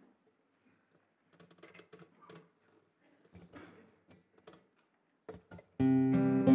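Acoustic guitar strummed, its chord ringing out loudly from near the end, opening the song's accompaniment. Before it, a few seconds of near quiet with faint scattered taps and rustles.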